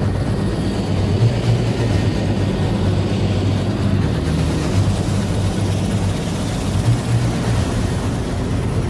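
Mi-8 helicopter running on the ground close by: its twin turboshaft engines and turning main rotor make a steady, loud noise with a deep drone.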